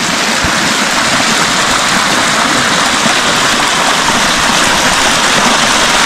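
Mountain spring water running and splashing close by, a loud, steady rush.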